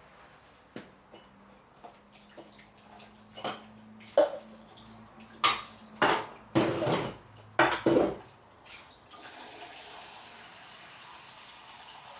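Dishes and cutlery clinking and clattering in a kitchen sink during washing up, with the loudest knocks in the middle. A tap then runs steadily from about nine seconds in.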